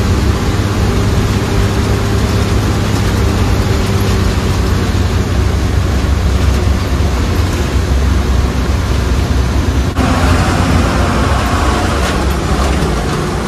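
Bus engine and road noise heard from inside a moving MSRTC state-transport bus: a steady, loud low drone with road rumble. About ten seconds in the sound changes abruptly.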